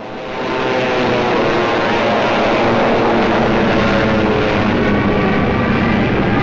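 Propeller-driven warplanes' engines droning, swelling up over the first second and then holding loud and steady, several engine tones layered together.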